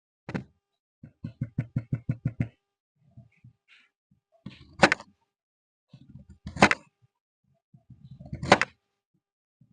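Knife chopping vegetables on a cutting board. One knock, then a quick run of about eight light chops, then three louder, heavier chops about two seconds apart, each led in by a short, softer rustle.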